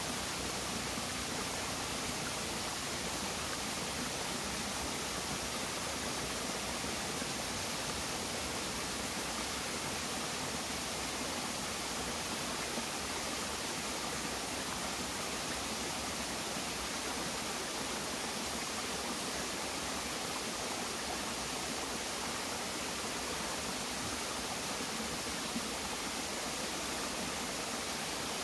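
Shallow stream running over rocks in small cascades: a steady, even rush of water.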